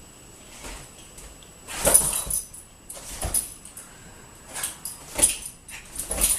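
Two dogs play-wrestling: irregular bursts of scuffling and jingling, the loudest about two seconds in.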